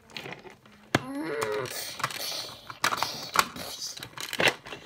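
A short growling dinosaur roar just after a sharp knock about a second in, as a toy tyrannosaurus is played, followed by several clacks of hard plastic toy dinosaurs knocking on the floor.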